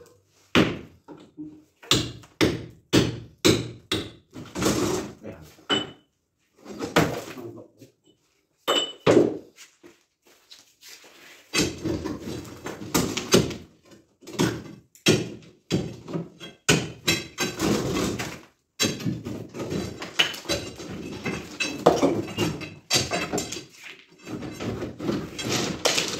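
Heavy, repeated knocks of a long steel bar striking masonry and rubble as it is broken out, about two blows a second at first, then a faster, denser run of blows from about halfway through.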